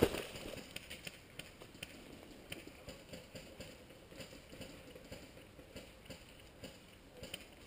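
Low rustling with occasional faint, light taps: someone shifting about, almost still, on dry ground strewn with twigs and pine needles.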